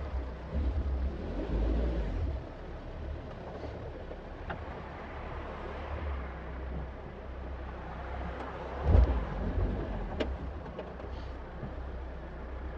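Caterham Super Seven 1600's engine running with a steady low rumble. It gets louder for a couple of seconds near the start and swells briefly about nine seconds in.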